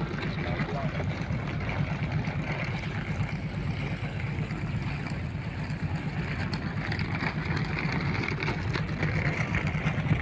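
Boat engine running steadily, a low fast-fluttering throb with a haze of water and background noise over it.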